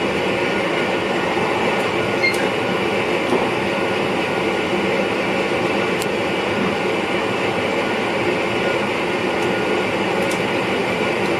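Steady running noise heard inside the driver's cab of an NS VIRM double-deck electric train under way on the track, with a few faint clicks.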